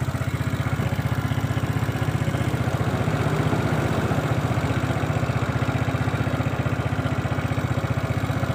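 Suzuki Smash's single-cylinder four-stroke engine running steadily at idle, an even rapid putter, while the battery's charging voltage is checked.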